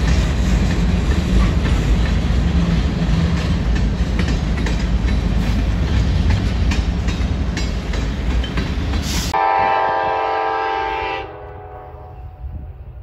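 Freight train cars rolling past at a road crossing, steel wheels rumbling and clacking on the rails. About nine seconds in, this cuts to a locomotive horn blowing one steady chord for about two seconds.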